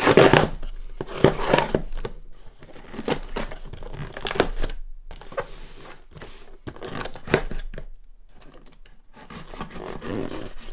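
Packing tape on a cardboard box being cut open with scissors and torn away: a string of irregular rasping, tearing strokes, with the cardboard rustling between them.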